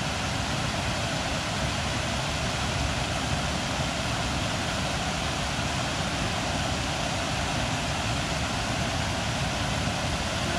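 Water pouring over a stone weir into a pool: a steady, unbroken rush.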